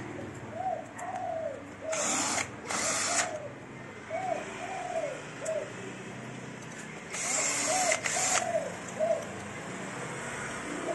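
Cordless drill-driver running in short bursts as it drives screws into a copier's sheet-metal frame: two brief runs about two and three seconds in, then a longer run from about seven seconds. Short rising-and-falling cooing notes from pigeons repeat in the background.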